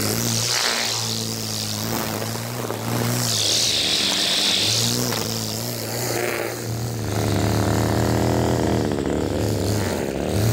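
Echo stick edger's small two-stroke engine running at a fast idle, its speed dipping briefly a few times and picking back up.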